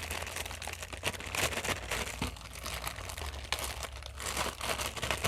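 Packaging being handled: irregular rustling and crinkling with small clicks, and a sharper click about three and a half seconds in.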